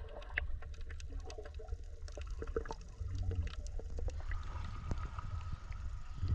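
Underwater sound picked up by a submerged camera: a muffled low rumble of moving seawater, dotted with many small clicks and bubble pops.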